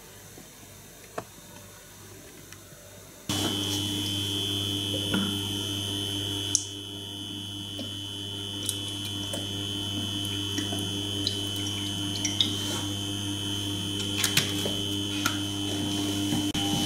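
Induction hob heating a non-stick frying pan: a steady high-pitched whine over a low hum, starting suddenly about three seconds in, with a few light clicks and taps.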